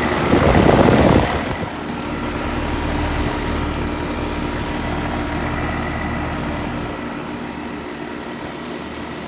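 Rheem Classic 2-ton central air conditioner condensing unit running steadily, compressor and condenser fan humming, after a loud rush of noise in the first second or so.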